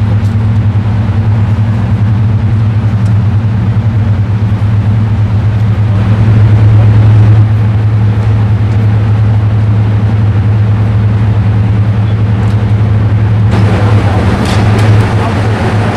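Class 55 Deltic diesel locomotive standing at idle, its two Napier Deltic two-stroke engines giving a loud, steady low drone. The sound turns harsher over the last couple of seconds.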